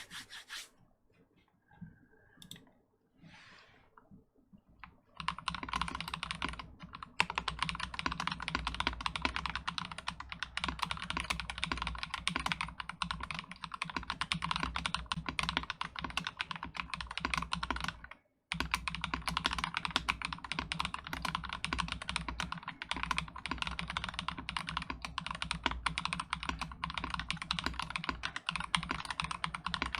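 Fast, continuous typing on an Akko ACR75 acrylic-stack gasket-mounted mechanical keyboard with lubed Akko Rose Red linear switches and Cherry-profile keycaps, in stock form with no tape mod. A few scattered sounds come first, and the steady typing starts about five seconds in. It breaks off for a split second just past the middle.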